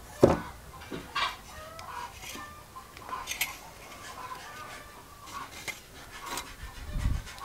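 Chickens clucking in short calls throughout. A sharp wooden knock about a quarter second in as a timber beam is set down on a tree stump, and another dull knock near the end.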